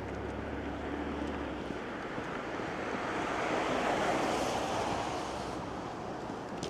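Street traffic: a passing vehicle's tyre hiss swells to a peak about four seconds in and then fades, over a low engine hum in the first couple of seconds.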